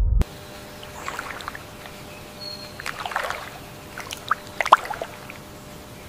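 Swamp water sounds: water lapping and trickling in brief, irregular bursts, with a few sharper splashes about four and a half seconds in, over a steady faint hiss. A deep underwater rumble cuts off sharply in the first instant.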